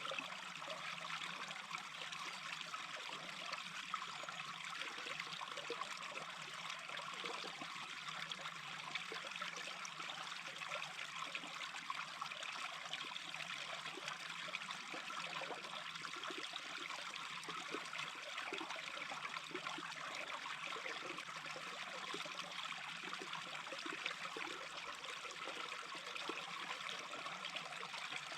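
Small brook babbling and trickling steadily, a continuous rippling wash of water.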